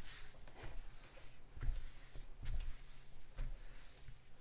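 Hands rubbing and pressing a diamond-painting canvas's plastic cover film down onto its glue layer, with faint rustling, light clicks and a couple of soft thumps in the middle. The pressing flattens creases in the glue so the drills won't lift.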